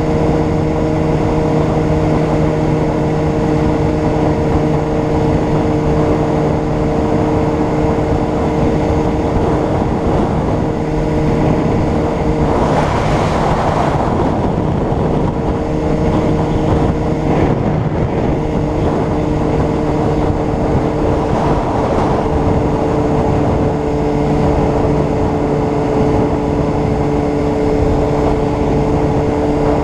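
Honda CBR600RR's inline-four engine running at a steady, nearly unchanging pitch while riding, with a brief rush of noise about halfway through.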